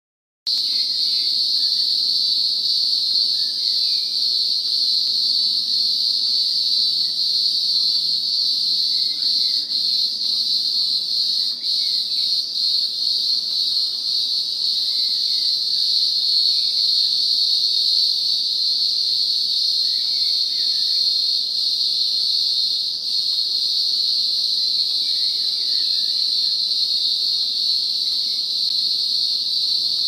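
Green grocer cicada (Cyclochila australasiae) singing: a loud, unbroken high-pitched buzzing drone that starts about half a second in. Faint short chirps sound in the background every few seconds.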